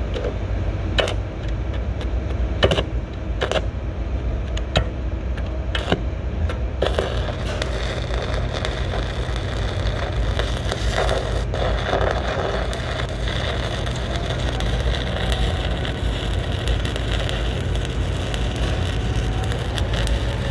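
A few sharp clicks in the first seven seconds, then from about seven seconds in the steady crackle of a stick-welding arc: a 1/8-inch 7018 rod burning at 127 amps.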